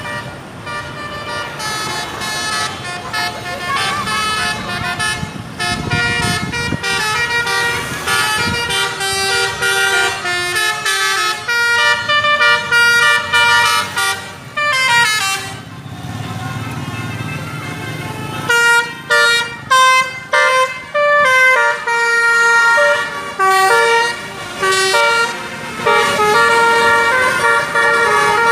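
Basuri multi-tone bus horn (telolet) playing a tune of short stepped notes that rise and fall in pitch, over and over, with choppier bursts of notes in the second half.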